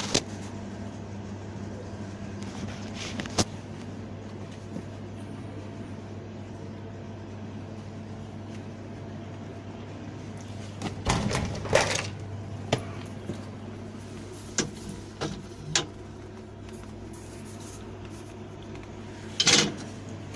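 Scattered knocks and clatters of parts being handled on a refrigerated counter under repair, loudest in a cluster a little past halfway and again near the end, over a steady low hum.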